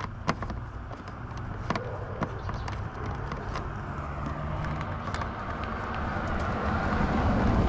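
A few sharp, irregular clicks of a small ratchet and Torx bit working the windshield bolts, followed by the noise of a passing vehicle that swells steadily through the second half.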